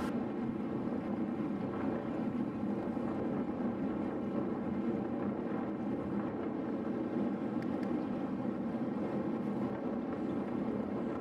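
Steady wind noise rushing over the camera's microphone while riding a road bike at speed.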